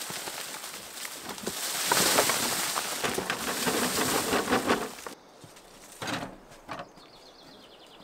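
Digging in stony earth: loose soil and stones scraping and tumbling in a dense crackle that grows loud about two seconds in and stops abruptly near the five-second mark, followed by a couple of brief, quieter scrapes.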